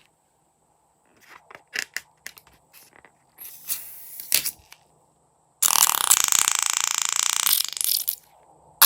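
Crunchy slime being handled: scattered crackles and clicks, then a dense stretch of crackling a little past halfway that lasts about two and a half seconds and stops suddenly, with another burst starting at the very end.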